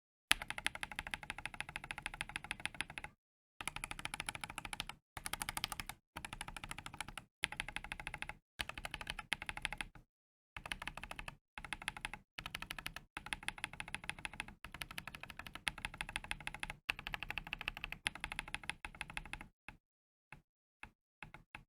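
Typing on a mechanical keyboard fitted with tactile frankenswitches: Holy Panda X housings with the longer stem of a Tecsee Coffee switch. Fast, continuous keystrokes come in runs of a few seconds with short breaks, ending in a few scattered key presses.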